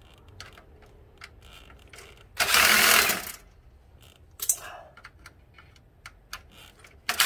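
Stanley cordless impact driver running in short bursts as it drives screws in the sheet-metal housing of a fluorescent light fixture: about a second's run a third of the way in, a brief one a second later, and another starting near the end, with small clicks of handling between.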